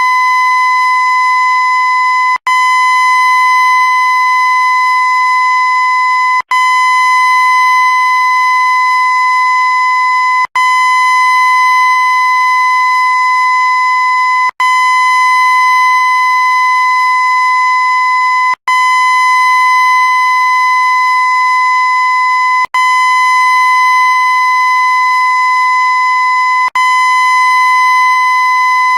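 A loud, steady, high-pitched horn tone held without change, looped: it breaks off for an instant about every four seconds and restarts at once, seven times in all.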